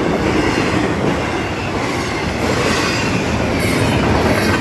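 Long intermodal freight train rolling past at speed: a steady rumble and clatter of steel wheels on rail. Two short, high hissing screeches come near the end.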